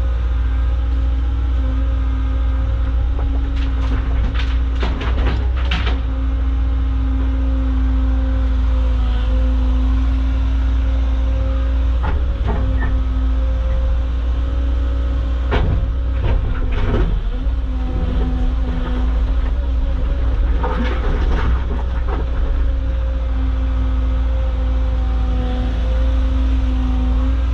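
Caterpillar excavator's diesel engine and hydraulics running steadily under digging load, with three bursts of scraping and clatter as the bucket digs into and dumps heavy material.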